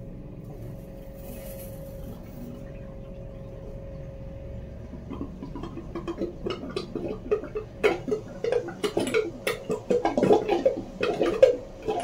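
Boat shower sump pump draining the shower basin, held on by a timed relay after the float switch has dropped: a steady hum, then from about halfway irregular gurgling and sucking that grows louder as the last water and air are drawn down the drain.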